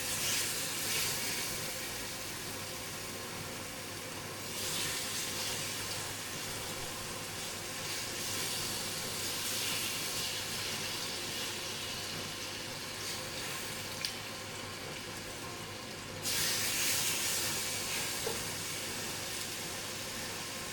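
Seasoned chicken pieces sizzling hard as they go into a pan of bubbling caramelised brown sugar, browning the meat for brown stew chicken. The hissing swells sharply at the start, again about four and a half seconds in and about sixteen seconds in.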